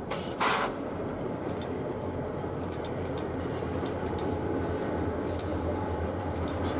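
Low, steady rumble of a diesel-hauled passenger train approaching in the distance, growing slightly louder. A short, louder burst of noise comes about half a second in.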